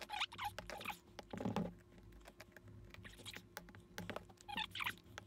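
Screwdriver scraping and prying at the soldered seam of an old aircraft instrument's sealed metal can, with a run of small clicks and a few short metallic squeaks as the tip works the solder.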